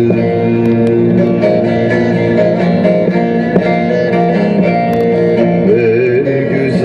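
Music led by a plucked string instrument playing a melody over sustained notes.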